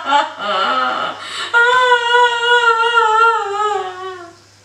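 A woman's voice mimicking a child crying: broken sobbing sounds, then one long wailing cry that slowly falls in pitch and trails off near the end.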